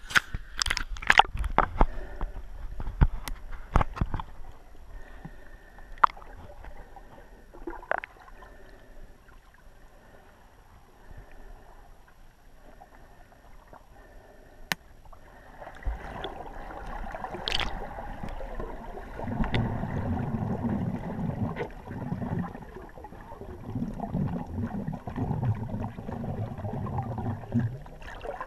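Muffled water sounds heard through a GoPro's waterproof housing as it goes underwater: splashes and sharp knocks in the first few seconds, a quieter stretch, then a choppy low rumble of water moving against the housing from about halfway.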